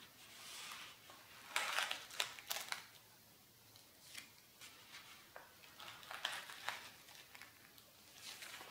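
Pages of a spiral-bound sketchbook turned by hand: paper rustling and crackling in two main bursts, about one and a half seconds in and about six seconds in, with a lighter rustle near the end.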